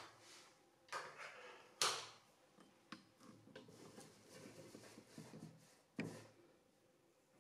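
Large sheet of kraft pattern paper being handled and shifted on a table: a few short paper rustles and light knocks, the loudest about two seconds in and another near six seconds.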